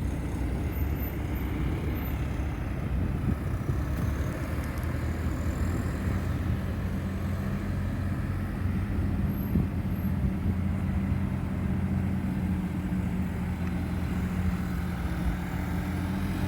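Steady road traffic: vehicle engines and tyres rumbling along a busy street, with a steady low engine drone joining about six seconds in.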